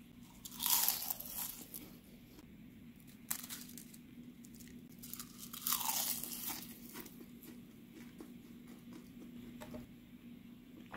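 Crisp microwaved lettuce chips coated with parmesan being bitten and chewed, with loud crunches about a second in, near three seconds and around six seconds, then a few faint crackles.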